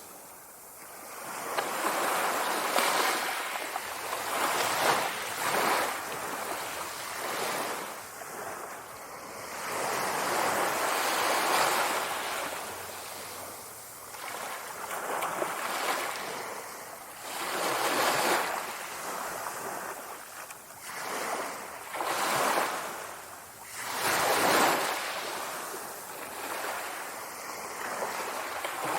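Sea waves breaking and washing on a shore, the surf swelling and fading every few seconds.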